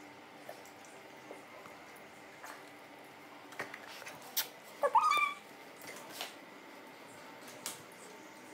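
German Shepherd dog giving one short, high whine about halfway through, with a few sharp clicks just before it.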